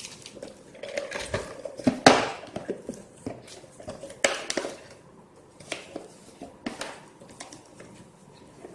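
Small mounting screws and plastic accessory parts being handled: scattered clicks, light rattles and rustling, with one sharper knock about two seconds in.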